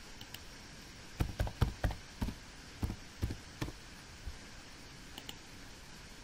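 Typing on a computer keyboard: about eight keystrokes in quick, uneven succession as a short word is typed and entered. Near the end come two light clicks of a computer mouse.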